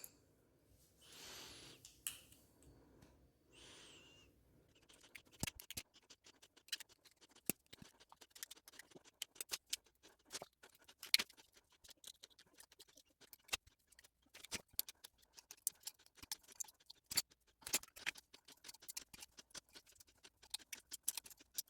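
Faint, irregular clicks and snaps of a tool working at the metal case of an alkaline 9-volt battery, prying and tearing it open. Two soft hissy swells come first, then the clicks run on in scattered bunches.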